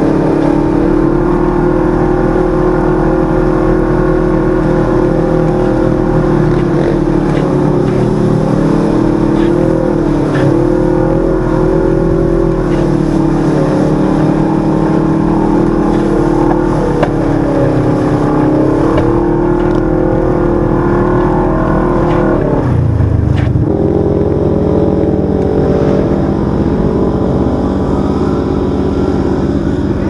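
Side-by-side UTV engine running steadily while driving a dirt trail, its pitch wavering up and down with the throttle. About 23 seconds in the pitch drops for about a second, then picks back up.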